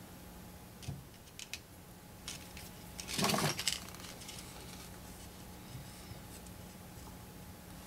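Light metallic clicks and a short rattling clatter about three seconds in: small metal parts and tools being handled against the steel amplifier chassis during soldering, over a faint steady hum.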